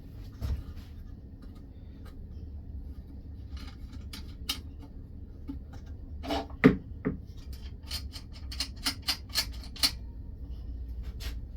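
Sharp metal clicks and knocks from a chisel being fitted and adjusted in a sharpening jig on a wet sharpener's support bar, a few early on and a quick cluster in the second half, over a steady low hum.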